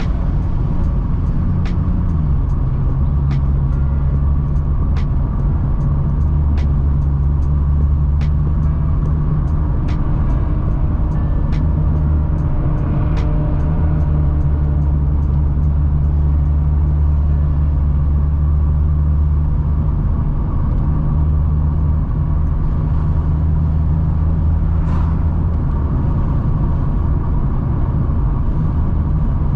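Turbocharged Barra inline-six in a Ford Falcon cruising steadily, heard from inside the car as a low drone; its pitch steps down slightly about two seconds in. A light tick repeats at an even pace for roughly the first dozen seconds.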